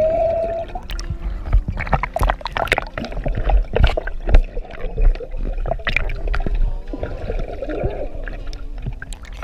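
Underwater sound in a swimming pool heard through an action camera's waterproof housing: a muffled rumble and gurgling with many sharp clicks and knocks. A short muffled voice-like hum comes right at the start.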